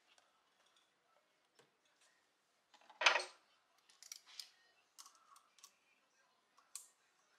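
Intake hose and clamp hardware being handled at the throttle body: scattered small plastic and metal clicks and rattles, with one louder scrape about three seconds in.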